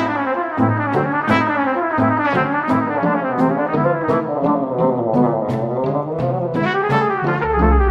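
Background music: a brass-led instrumental with a stepping bass line and a steady beat.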